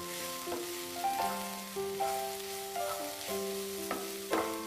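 Cabbage curry sizzling softly in a frying pan, under background instrumental music with slow held notes.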